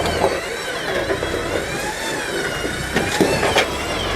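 Jeep TJ engine running as it crawls the rocks, with a wavering whine rising and falling in pitch and a few sharp knocks about three seconds in.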